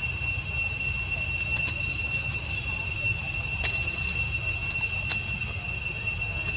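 Steady high-pitched insect chorus: one unbroken note with a higher overtone, over a low rumble, with three faint clicks.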